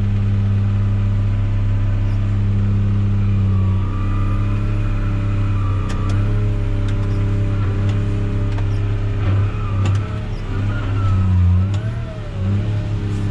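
Tractor engine running steadily under load while pulling a heavy, nearly full grain wagon, its note shifting up and down from about four seconds in, with a few clicks and knocks.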